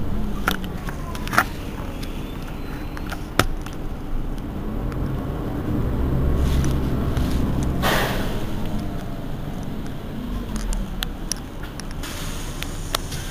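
Mercedes-Benz Citaro city bus engine idling steadily while the bus stands at the stop. A few sharp clicks fall in the first few seconds, and a short hiss comes about eight seconds in.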